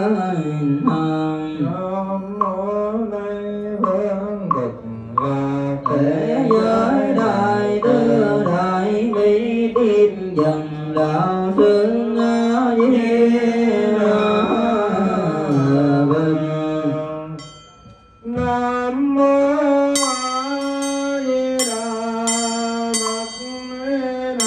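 Buddhist devotional chant sung to a melody with instrumental accompaniment. About seventeen seconds in it fades out briefly, and a new passage starts with a steady held tone and repeated bell-like strikes.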